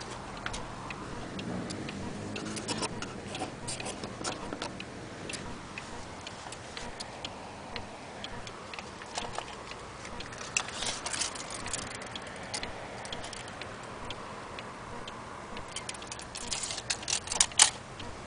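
Antique cuckoo clock's movement ticking and clicking, with clusters of louder clicks a few times; the loudest come near the end.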